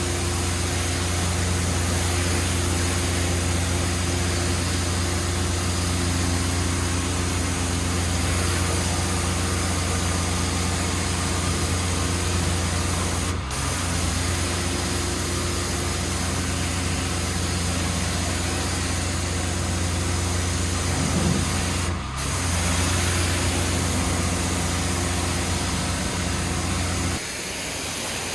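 Petrol pressure washer engine running steadily under a constant hiss of high-pressure water spraying on stone paving. It briefly dips twice, and near the end the engine hum drops away, leaving the hiss.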